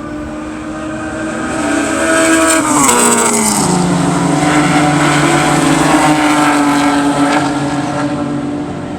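Race car engines running at speed past the track edge. The engine note drops in pitch about three seconds in, then holds while the sound grows louder, and fades a little near the end.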